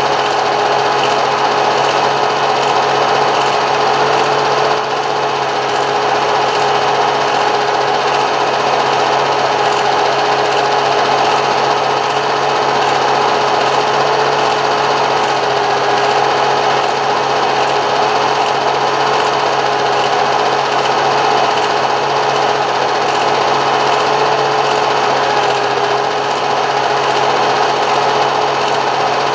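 A small machine running steadily: a constant mid-pitched hum over an even mechanical whirr, with no change in pace.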